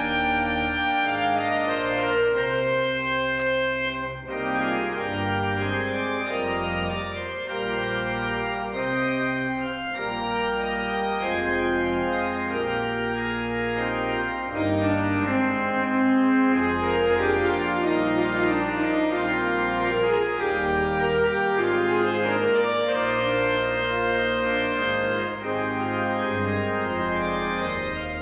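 Organ postlude: sustained chords that change every second or so over a moving bass line.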